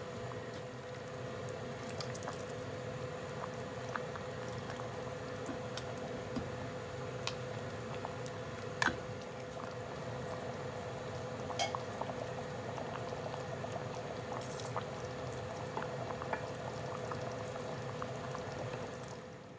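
A pot of coconut-milk stew bubbling steadily on the stove while it is stirred with a ladle. Small clicks and pops run through it, with one sharper click about nine seconds in, over a steady hum.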